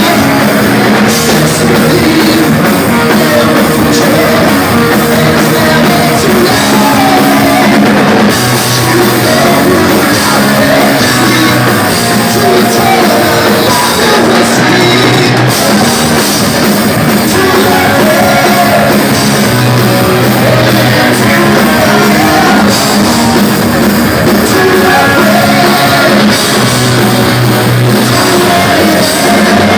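Heavy metal band playing live, loud and unbroken: distorted electric guitars, drum kit and a singer.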